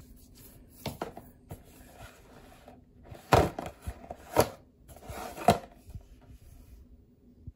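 Hands handling a cardboard product box and a plastic bottle on a wooden surface. Several short rubs, scrapes and light knocks, the loudest a few seconds in.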